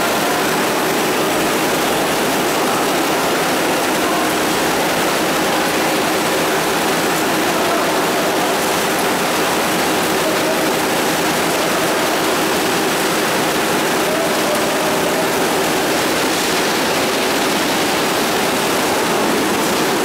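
Automatic peanut frying line and its stainless-steel conveyor running: a steady, even hiss over a faint continuous machine hum, unchanging throughout.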